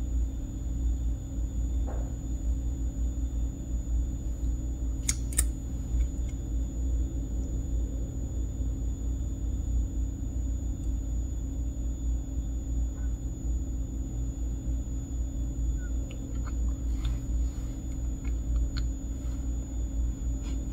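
Steady low rumble of room background noise with a faint steady hum, broken only by two faint clicks about five seconds in and a few small ticks later.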